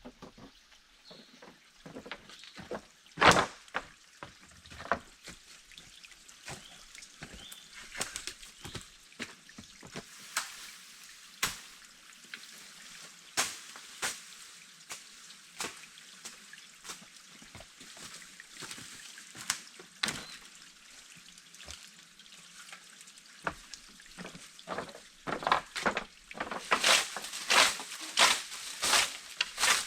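A series of short, sharp knocks and clicks at uneven intervals over a faint hiss. From about 25 seconds they become louder and more regular, roughly two strokes a second.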